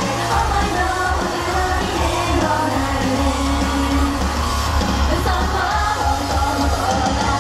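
Female J-pop idol group singing live into handheld microphones over loud pop music with a heavy, steady bass.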